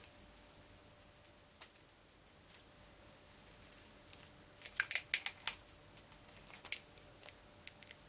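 Light clicks and taps of utensils against a bowl while raw egg and rice are mixed: a few scattered clicks, then a quick flurry of sharper clicks around the middle and a looser run after it.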